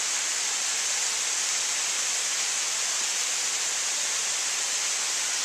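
Waterfall: falling water making a steady, even hiss.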